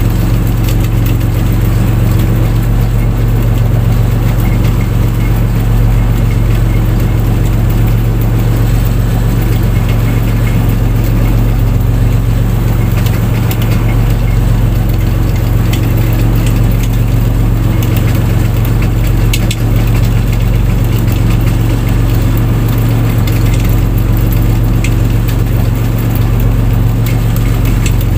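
Fishing boat's engine running steadily, a loud, even low drone with no change in speed.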